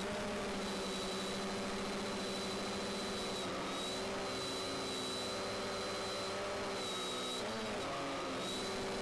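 Quadcopter drone's motors and propellers humming steadily. About three-quarters of the way through, the pitch dips and wavers, then settles back as the motors change speed.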